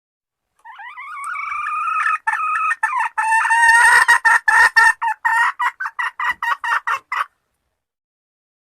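Hen calling: a drawn-out wavering note that swells, then a fast run of short, sharp clucks, several a second, which stops abruptly.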